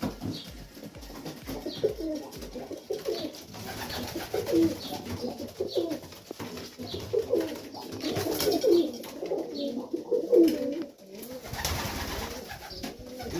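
Several Serbian highflyer pigeons cooing, overlapping low warbling coos that go on throughout and grow busier in the second half, in a small loft.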